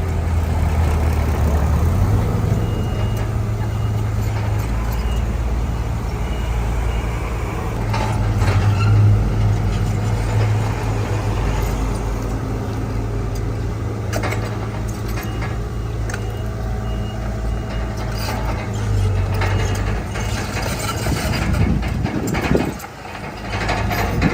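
Heavy diesel engine of earthmoving machinery running under load, its low rumble shifting in pitch now and then, with some clanking along the way and a sudden drop in level near the end.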